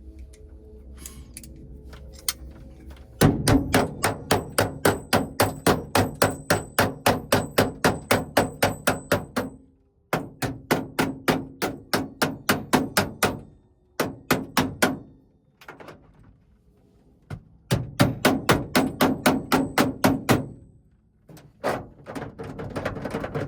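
Hammer striking metal on a van's side door in rapid runs of blows, about three a second, in several bursts with short pauses between them. The blows knock out a fitting that had the door bolted shut.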